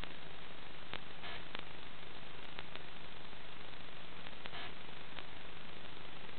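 Steady hiss of static with a faint low hum and a few scattered clicks, the audio of an analog FPV video link rather than of the aircraft.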